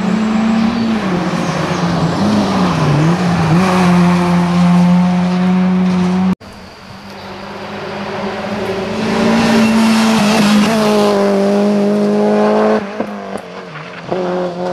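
Rally car engines at high revs, one car after another. The first engine's pitch dips and picks up again a few seconds in. The sound cuts off abruptly about halfway, then a second car's engine builds to a long steady high-rev pull and drops off with a few short blips near the end.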